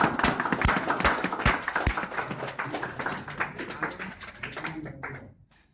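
A small crowd clapping, dying away about five seconds in.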